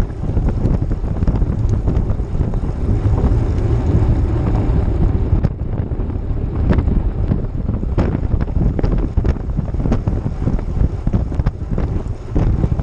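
Wind buffeting the microphone of a bike-mounted action camera while cycling, a loud, steady low rumble mixed with tyre noise on the road surface. A few short sharp ticks come through in the second half.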